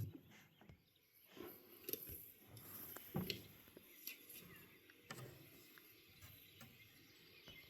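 Near silence, with a few faint, irregularly spaced soft knocks.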